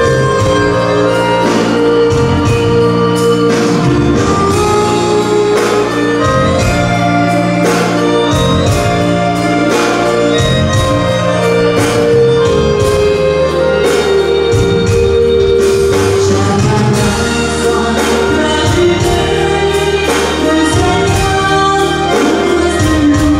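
Live dance band playing amplified music with violin and women singing over a steady beat.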